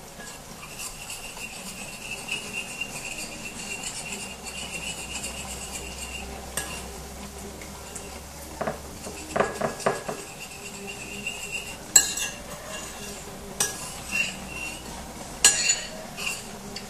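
A spoon stirring cornstarch into liquid in a ceramic bowl to dissolve it, scraping round the bowl. In the second half come several sharp clinks of the spoon against the bowl, the loudest about twelve seconds in.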